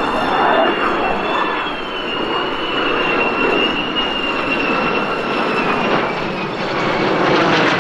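Jet engines of a formation of two F-35 fighters and a Gulfstream business jet flying past: a steady rush with a high whine that slowly falls in pitch, and a rougher crackle building near the end as the jets close in.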